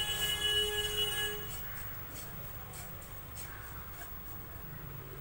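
Faint scraping and tapping of a silicone spatula stirring chopped dry fruits and poppy seeds in ghee in a nonstick pan. A steady ringing tone fades out about a second and a half in.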